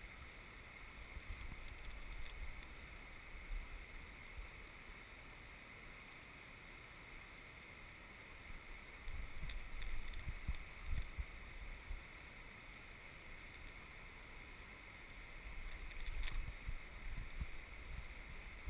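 River current rushing around the wading angler, a steady hiss, with a few gusts of wind rumbling on the microphone.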